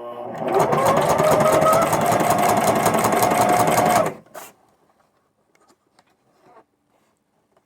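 Sewing machine with a walking foot stitching heavy material with heavy thread: the motor hums, then runs into rapid, even stitching with a steady whine for about four seconds before stopping abruptly, with one short click just after. The sewer thinks the machine is struggling with the thick layers.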